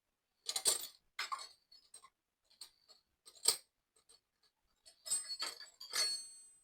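Metal hand tools and parts clinking and knocking in a string of sharp separate strikes, with a brief metallic ring near the end.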